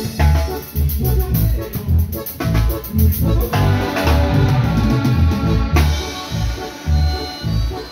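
Live band music: a drum kit keeping a steady beat under keyboard and bass.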